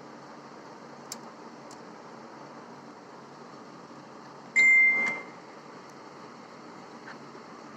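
A single loud electronic beep, one steady tone lasting about half a second a little past halfway, ending with a click, over a steady background hum with a couple of faint clicks near the start.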